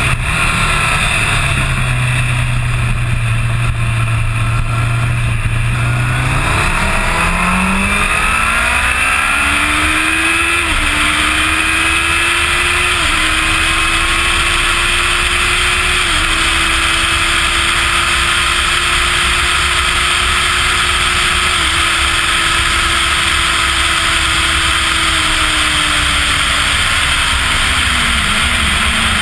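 A 2005 Kawasaki ZX-10R's inline-four engine heard onboard over heavy wind rush at track speed. It holds a steady note for a few seconds, then climbs in pitch as the bike accelerates hard, runs high with small dips every few seconds, and drops near the end as the bike slows.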